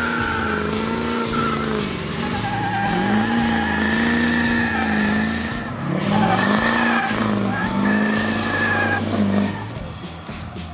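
A car engine revving up and down over and over, with tires squealing.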